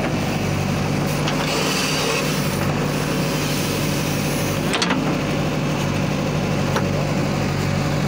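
Diesel engine of a JCB 3DX backhoe loader running steadily at a working throttle, with a sharp metallic knock about five seconds in and a fainter one a couple of seconds later.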